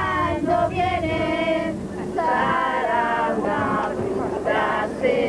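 A group of men and women singing together in unison inside a coach bus, in short sung phrases with brief pauses between them.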